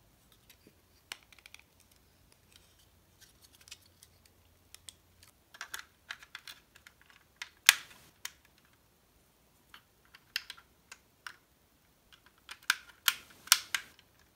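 Hard plastic model kit parts clicking and tapping as they are handled and pressed together. Scattered sharp clicks, the loudest about eight seconds in, and a quick run of clicks near the end.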